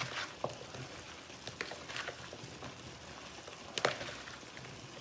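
A few light clicks and taps of a utensil mixing salad in a bowl, over a faint steady hiss.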